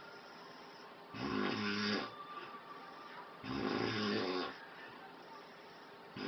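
A man snoring heavily: loud rasping snores, each lasting about a second, coming in a steady rhythm about every two and a half seconds. Two full snores, with a third starting right at the end.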